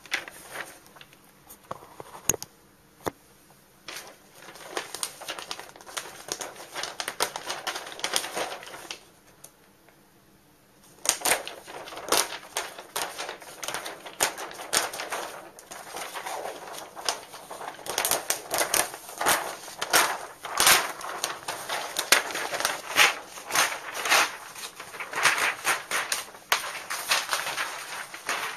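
A sheet of pattern paper crackling and rustling in irregular bursts as hands separate the plotter-cut pattern pieces from it, with a pause of about two seconds partway through.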